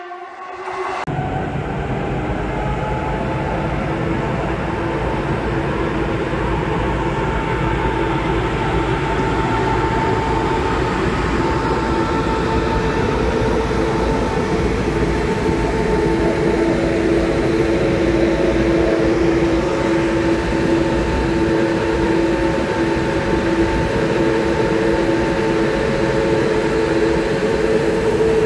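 Cooling fans of an ICE 1 power car running while it stands at the platform: a steady rushing hum with several held tones, growing slowly louder.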